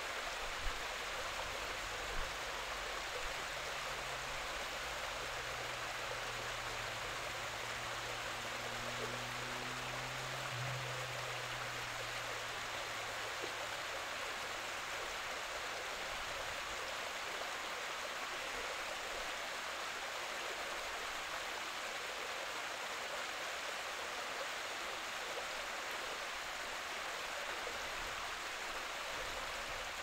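Small rocky stream splashing steadily down a short cascade into a pool.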